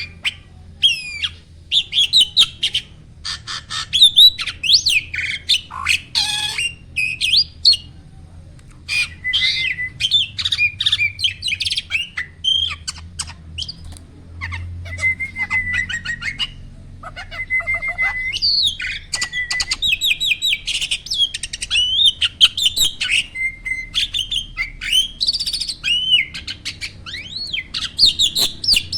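A kept jalak starling singing: a varied run of whistles, chirps and harsh squawky notes in phrases separated by short pauses.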